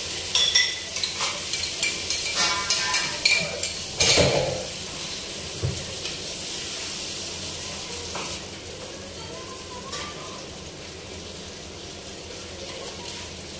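Greens sizzling in a frying pan on a gas burner while a wooden spatula stirs them, with quick scraping and knocking against the pan over the first few seconds, loudest about four seconds in. After that the frying settles into a steady, quieter sizzle.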